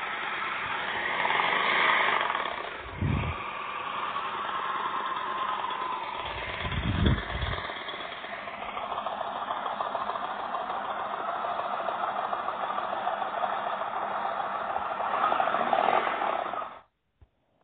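Recorded motorcycle engine sound of a 2016 Indian Chief Dark Horse V-twin, played back from a phone app. It runs with a few rises in revs and two low thumps, then cuts off abruptly about a second before the end.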